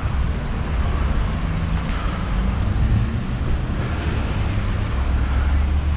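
Vehicle engines running with street traffic noise, a steady low rumble that grows stronger about five seconds in.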